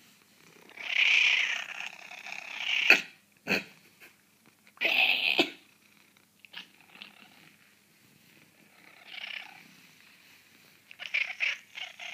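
Domestic cat giving a few raspy, breathy calls close up, each lasting between half a second and two seconds, with some sharp clicks between them: begging for food.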